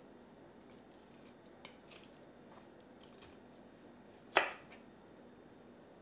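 A large kitchen knife chops once through cooked chicken into a wooden cutting board: a single sharp knock about four seconds in. Before it come a few faint soft clicks of the meat being handled.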